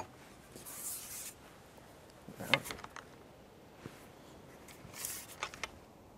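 Handling noises from a fishing pole and its rig: light rubbing, one sharp click about two and a half seconds in, and a few quicker clicks and rubs around five seconds in.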